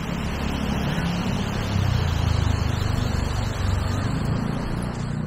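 Wind rumbling on the microphone, over the wash of surf and the voices of people on the beach.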